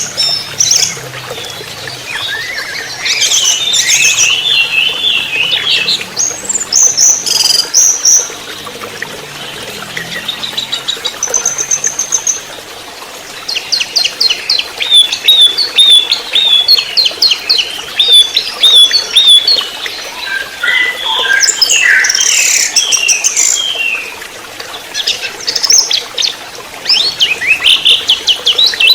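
Orange-headed thrush singing: a varied run of loud whistled and slurred phrases, with a stretch of fast repeated notes about halfway through.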